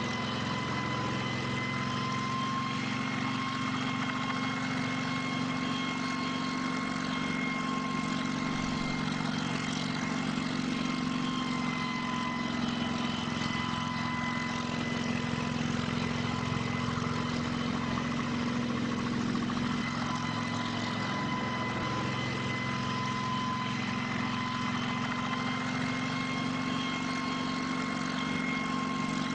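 Kamov Ka-26 helicopter running steadily: twin radial piston engines and coaxial rotors, with a steady whine over the engine drone.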